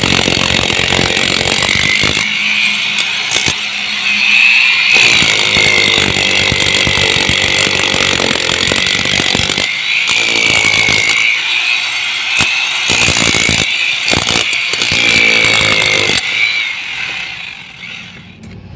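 Electric demolition hammer with a 17 mm hex chisel hammering into a brick wall: a steady motor whine, wavering in pitch, over rapid chisel blows. It winds down near the end.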